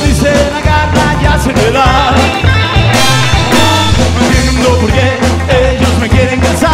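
Rockabilly band playing live: a bass line stepping from note to note under electric guitar and a steady drum beat.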